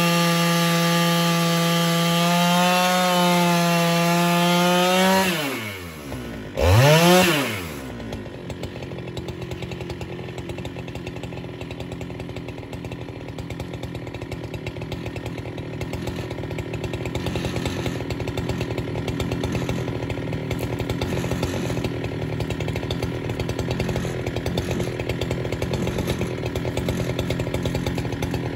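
Husqvarna 395XP 94 cc two-stroke chainsaw on an Alaskan mill, running at full throttle through a log. About five seconds in the pitch falls as it comes off the throttle, it revs up and down once, and then it settles to a steady idle.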